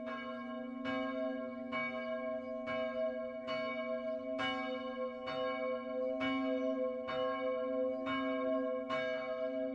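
A church bell tolling, struck evenly a little under once a second, its hum ringing on steadily between strokes.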